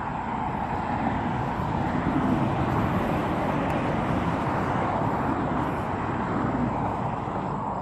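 A road vehicle passing: a steady rush of tyres and engine that swells around the middle and fades again.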